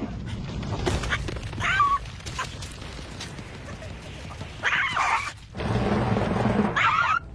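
Three short squawking yelps from a cartoon bird, a couple of seconds apart, over the low rumble of a giant rolling boulder. The rumble swells in the last second and a half as the boulder grinds over the ground, then cuts off.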